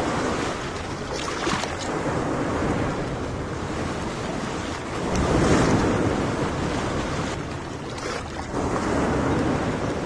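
Small waves washing on a sandy beach, with wind buffeting the microphone. The wash swells louder about halfway through and again near the end.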